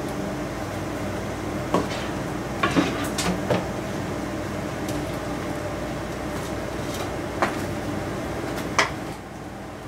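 Scattered clinks and knocks of dishes, a ladle and a frying pan being handled while soup is served, a cluster of them a couple of seconds in and two more single knocks later. A steady machine hum like a kitchen fan runs underneath and drops a little near the end.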